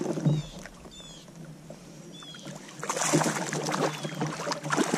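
Water sloshing and splashing around a kayak, louder in a brief burst at the start and again over the last two seconds. Several short bird chirps come in between.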